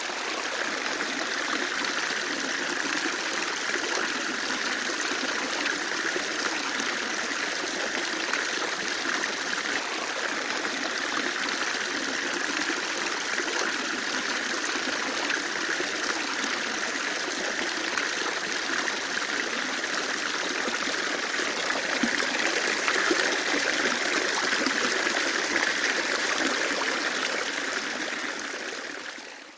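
Water running steadily through an automatic self-cleaning strainer's test rig, a continuous rush like a small stream, fading out near the end.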